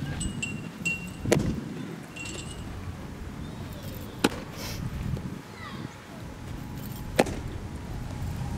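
Three sharp smacks of a baseball hitting a catcher's gear, about three seconds apart.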